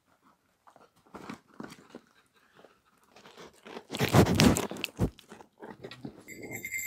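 A goat nosing and nibbling right at the microphone: soft crunching and rustling, then a loud close rubbing bump about four seconds in and a dull knock a second later.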